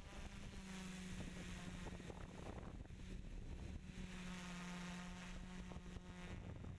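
Multirotor drone's electric motors and propellers buzzing steadily in flight, heard close up from the camera mounted on the drone.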